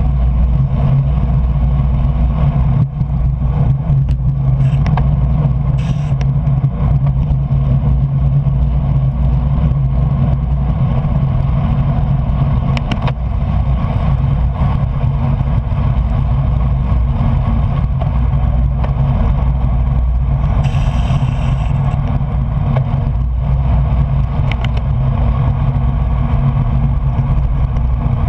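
Steady loud rush of wind and road noise from a bicycle ridden at race speed on wet roads, with a brief hiss about twenty seconds in.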